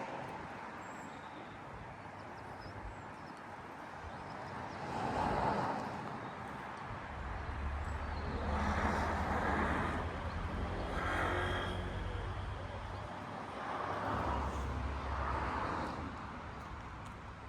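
Cars passing by, several swelling and fading one after another over a low rumble.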